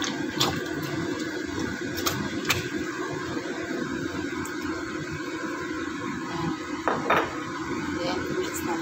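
Coconut milk and sugar simmering in a wok around sticky rice, giving a steady sizzle and bubble, with a few light clicks and knocks as jackfruit strips are dropped in. The loudest is a pair of knocks about seven seconds in.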